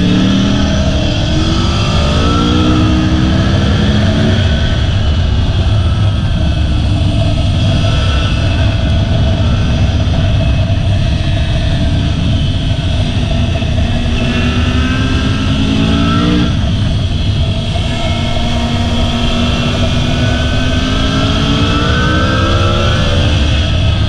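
Sport motorcycle engine pulling hard, its pitch climbing as the rider accelerates out of the bends and dropping sharply at gear changes or throttle-off, several times over. A steady low rumble of wind on the microphone runs underneath.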